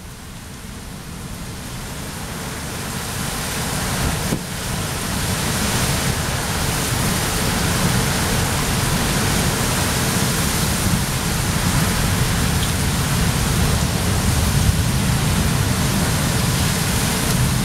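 Tornado storm wind blowing hard, with driving rain and wind buffeting the microphone in a heavy low rumble. It grows louder over the first five seconds, then stays loud and steady.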